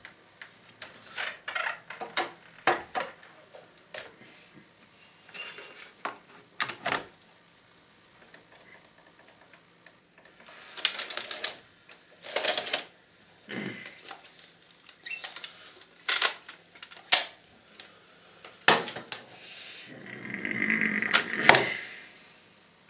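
Irregular clicks, taps and knocks of hands handling the plastic and metal casing and parts of a partly dismantled VCR, with a couple of longer shuffling handling noises, one in the middle and one near the end.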